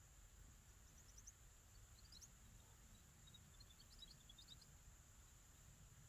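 Faint, high chirps from small birds in a few quick runs, about a second in, around two seconds in, and again from about three and a half to four and a half seconds, over a quiet background with a faint steady high hiss.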